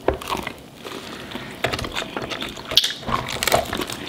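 Close-up eating sounds of biting and chewing fried chicken wings with no hands: irregular wet smacks and clicks of the mouth.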